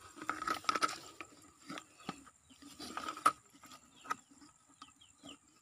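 Handling of a white plastic bucket with irregular clicks and knocks and some rustling as a caught eel is put into it; the loudest knock comes about three seconds in.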